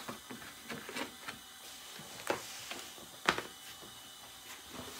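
Light clicks and taps of things being handled on a worktable, with two sharper knocks about two and three seconds in, over a faint steady hiss.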